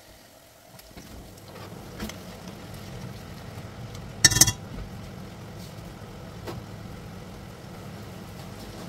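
A metal cooking utensil clatters against a red enamelled cast-iron pot about four seconds in as the pot's contents are stirred, over a steady low hum that sets in about a second in.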